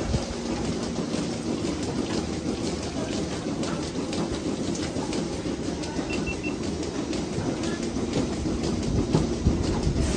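Milking parlour machinery running: a steady low rumble and hiss with light clatter. Three faint short beeps about six seconds in.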